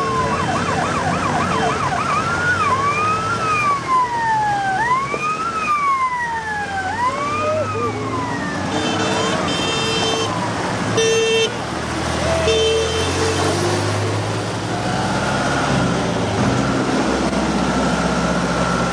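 Vehicle sirens wailing, their pitch sweeping slowly up and down, with a faster warble in the first couple of seconds. The sirens die away after about eight seconds, followed by several short steady-pitched blasts and then a steadier drone.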